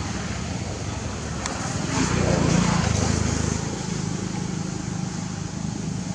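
Steady low hum of a motor vehicle engine, swelling about two seconds in as it passes and then settling back.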